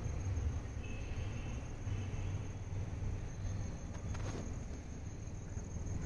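Insects, likely crickets, keep up a steady high-pitched trill at dusk over a low rumble.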